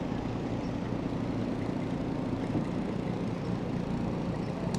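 Steady outdoor city ambience: a low, even rumble of distant traffic with no single event standing out.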